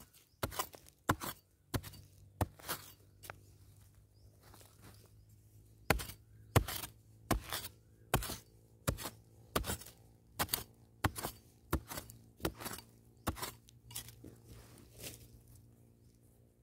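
A digging tool chopping into dry, crumbly soil, one stroke after another, about one every three-quarters of a second. There is a few-second lull early on with only light strokes, and the strokes fade out near the end.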